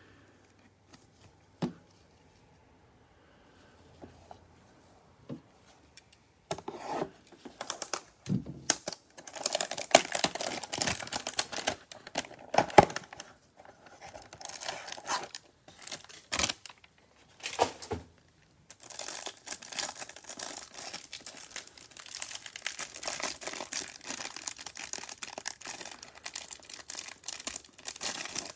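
Cellophane wrap on a trading-card hanger box and its card stack crinkling and tearing as it is pulled open by hand. After a quiet start with a few light clicks, the crinkling comes in bursts and turns continuous in the last third.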